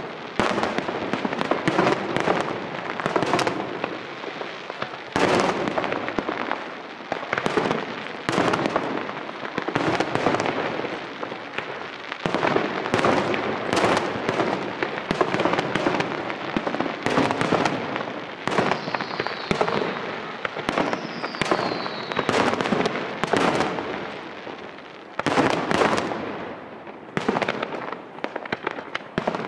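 Aerial fireworks shells bursting one after another in a dense run of bangs and crackle, with two short falling whistles about two-thirds of the way through and a brief lull near the end before more bangs.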